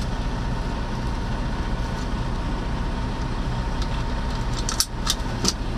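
Semi truck idling, a steady low hum heard inside the cab. A few sharp clicks come about four to five and a half seconds in, as the seat belt latch and the door lock are worked.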